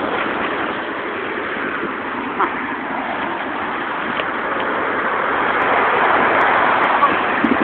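Road traffic on a multi-lane street: steady tyre and engine noise that swells as a van drives by about six seconds in. A brief knock comes about two seconds in.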